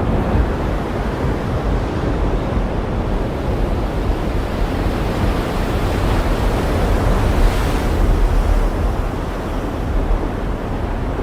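Ocean surf washing in steadily over a deep low rumble, with one wave swelling into a brighter hiss about seven and a half seconds in.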